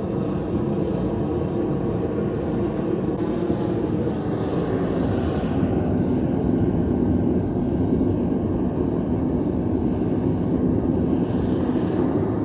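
Gas burner of a Devil Forge melting furnace running, a steady low rushing noise that swells slightly partway through.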